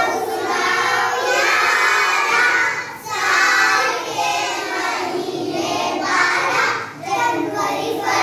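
A class of young children singing together in unison, a song of the names of the months, in phrases about four seconds long with short breaks about three and seven seconds in.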